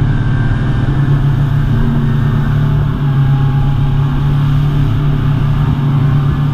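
Speedboat engine running steadily under way: a loud, even, low drone over a rush of noise.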